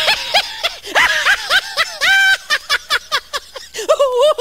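Laughing-lion sound effect: high-pitched, cartoon-style laughter in quick choppy syllables. There is a brief held squeal about two seconds in, then a quieter stretch, and a wavering drawn-out note near the end.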